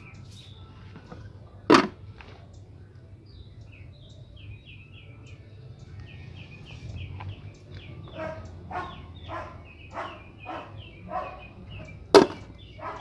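Small birds chirping in short repeated notes, with two sharp knocks on the table, the second near the end being the loudest. In the second half there is also a run of short rough sounds, about two a second.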